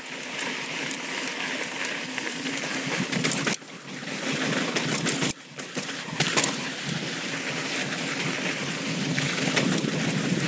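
Mountain bike riding fast down a dry dirt trail: steady tyre and trail noise with scattered knocks and clatter from the bike. The noise drops away briefly twice, about three and a half and five and a half seconds in.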